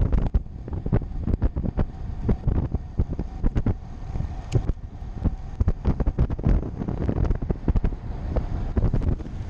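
Wind buffeting the microphone of a camera on a moving road bike, a dense low rumble broken by many irregular thumps and gusts.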